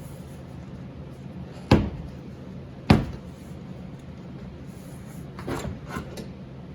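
Two sharp knocks about a second apart, then a few lighter clicks, from hard parts being handled during work on a car door.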